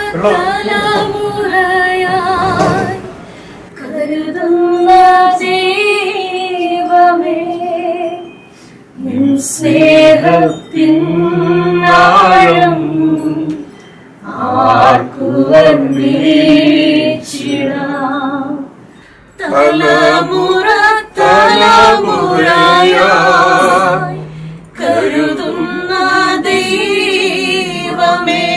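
Unaccompanied singing led by a woman's voice, in sung phrases of a few seconds with short breaths between them; the held notes waver.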